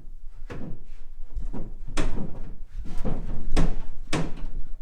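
A series of irregular wooden knocks and clunks as a pine shelf is angled in and bumped against the wardrobe's side panels, loudest about two seconds in and twice near the end.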